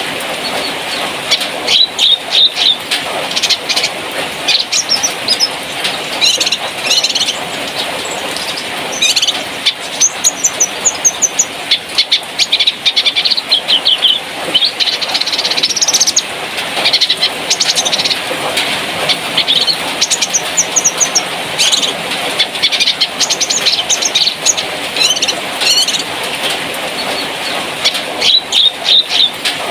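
Cucak kinoi songbird calling and singing: clusters of short, sharp chirps and quick high trills repeated throughout, over a steady background hiss.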